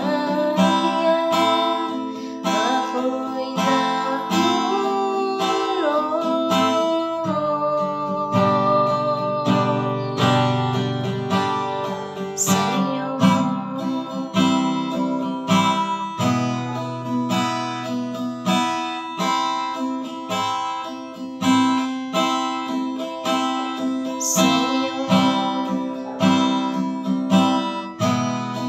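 Acoustic guitar strummed steadily in a regular rhythm, with a woman singing along, her voice clearest in the first several seconds.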